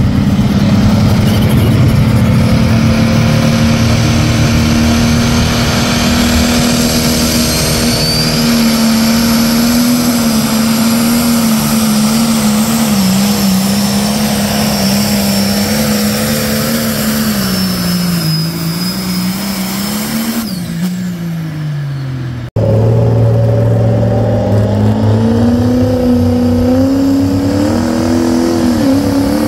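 A pulling tractor's engine runs hard under load down the pull track, its pitch sagging over the last few seconds as it bogs down. After an abrupt cut, a pickup truck's engine runs hard with its pitch climbing as it makes its pull.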